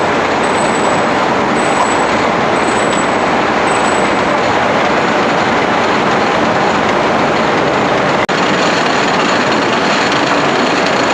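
Corn cutting machine running as husked ears are fed through its circular-knife cutting head: a loud, steady mechanical din. It cuts out for an instant about eight seconds in.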